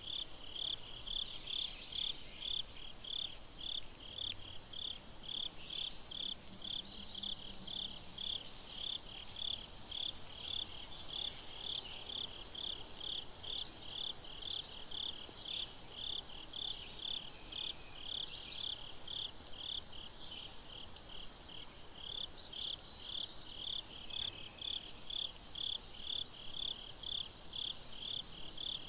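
A cricket chirping steadily, a short high chirp repeated evenly two to three times a second, with fainter, higher chirps scattered irregularly above it.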